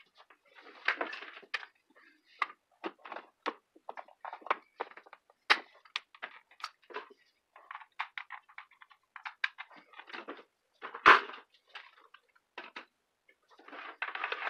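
Irregular clicks, taps and rustles of power cords and plugs being handled and plugged into a power strip, with one louder knock about eleven seconds in.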